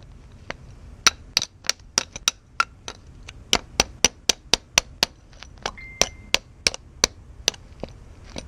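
Hammer striking a freshly welded steel joint over and over, sharp metallic knocks at about three a second in an uneven rhythm: a strike test of whether the weld holds.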